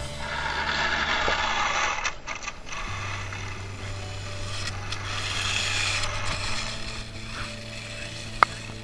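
Radio-controlled snowmobile running in snow, its motor and track noise swelling twice, over background music with held bass notes. A single sharp click near the end.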